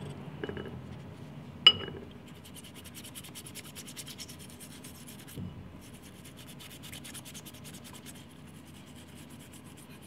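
Toothbrush bristles scrubbing a rusty pocket knife in vinegar in quick strokes, working off rust loosened by an overnight soak. A single sharp click about two seconds in.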